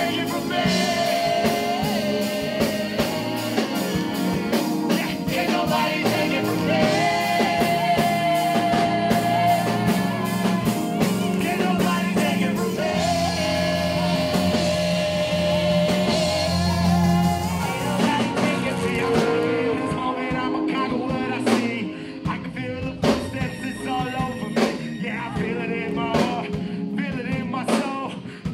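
Live gospel band with backing singers holding long sung notes in harmony over drums, bass and electric guitar. About two-thirds of the way through, the singing falls away and the band thins to sharper, sparser drum hits.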